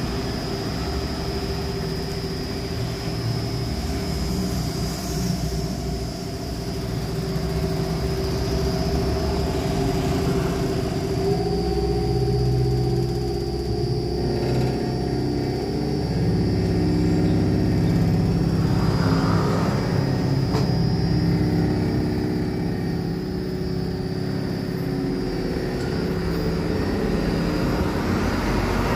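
Electric motor and gear drive of a stainless steel double-cone coffee powder mixer running as the drum turns: a steady mechanical hum with a thin high whine over it, its pitch shifting slightly about eleven seconds in.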